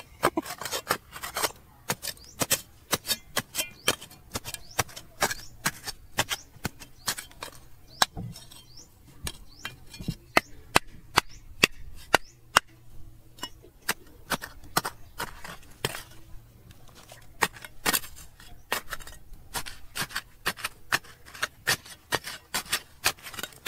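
A hand digging tool chipping at hard stone and soil: sharp, irregular strikes, a few each second, with no let-up.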